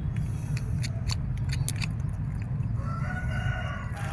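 Pruning snips cutting orchid roots: a few sharp clicks in the first couple of seconds. Near the end a rooster crows once in the background, all over a steady low hum.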